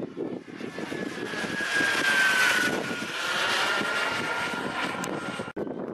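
Radio-controlled model airplane in flight, its engine sound swelling to a peak about two seconds in. A high whine drops a little in pitch as it passes, then the sound eases off. The sound breaks off sharply for an instant near the end.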